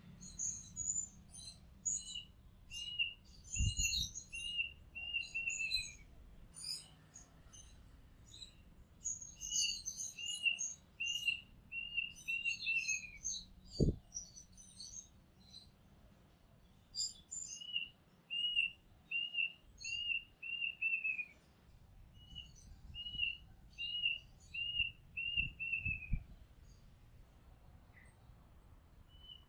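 Oriental magpie-robin singing: four phrases of short, clear downslurred whistles repeated about twice a second, mixed with thin higher chirps, with pauses between phrases. Three low thumps come through, the loudest about halfway.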